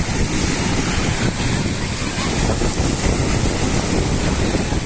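Wind buffeting the microphone as a heavy, uneven rumble over the steady wash of sea surf.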